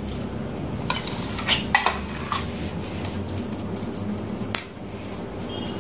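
A steel spoon knocking against a saucepan about five times, sharp clicks, as cooked rice is scraped off it into carrot purée.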